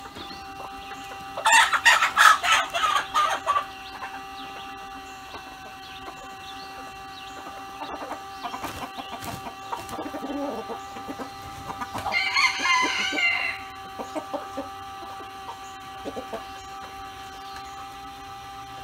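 Free-range chickens clucking and cackling, with two loud outbursts of calls, one about a second and a half in and another about twelve seconds in, and scattered quieter clucks between.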